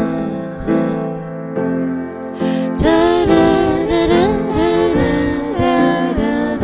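A soft pop song between sung lines, with piano accompaniment; after a brief dip, a wavering melody line comes in about three seconds in.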